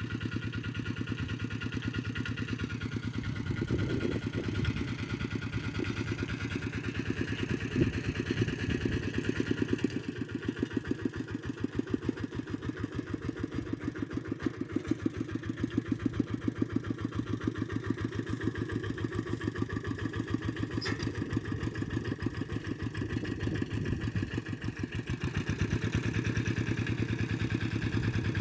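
Engine running steadily with a quick, even firing beat; its pitch drops slightly a few seconds in.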